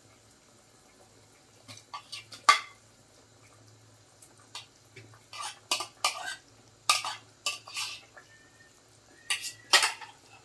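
Metal spoon scraping and clinking against a ceramic bowl, short sharp strokes in irregular clusters with pauses between, as food is pushed off the bowl. A faint steady low hum lies underneath.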